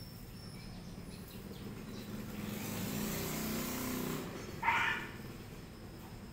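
A vehicle passing, its engine rising and then fading over a couple of seconds, followed about four and a half seconds in by a single short dog bark, the loudest sound.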